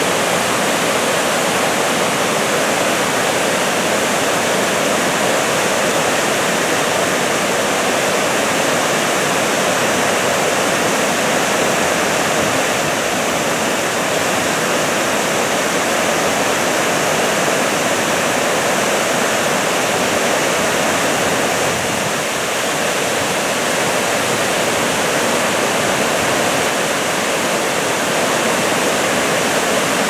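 Waterfall cascading over rocks: a loud, steady rush of water.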